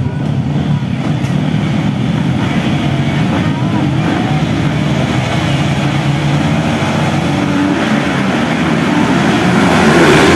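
A line of motocross bikes running together at the start gate, engines held at revs. Near the end the pack launches and passes close by, louder.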